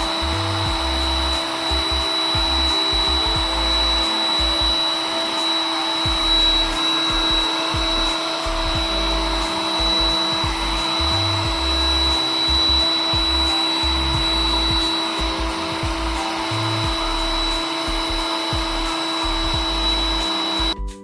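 Ingco 2000 W heat gun running: a steady rush of blown air with a thin high whine from its fan motor, cutting off near the end.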